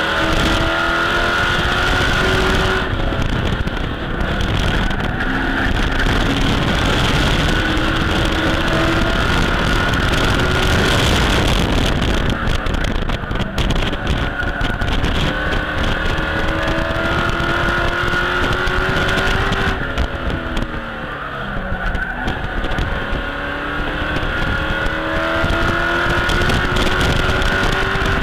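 Race truck's engine at racing speed, heard from inside the cockpit: it climbs in pitch again and again and falls back each time the throttle comes off. About two-thirds of the way through it eases off and drops in pitch before climbing again.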